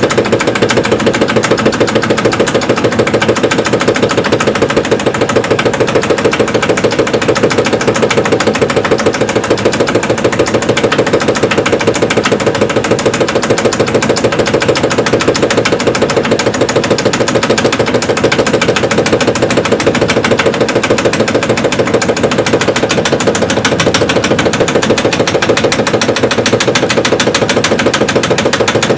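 Evrika-3M semi-automatic washing machine spinning its drum, with a rapid, steady knocking from the drum bearing.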